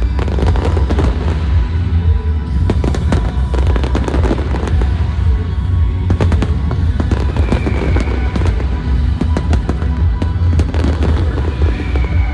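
Aerial fireworks going off in a rapid, dense string of cracks and pops, over loud music with heavy bass from the pyromusical show's soundtrack.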